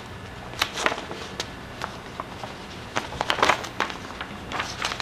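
A sheet of printed paper being handled and creased by hand on a table: scattered soft rustles, crinkles and light taps, busiest about three to four seconds in.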